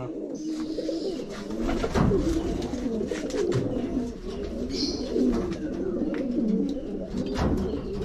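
Several domestic pigeons cooing at once, their low wavering coos overlapping continuously, with a few sharp clicks among them.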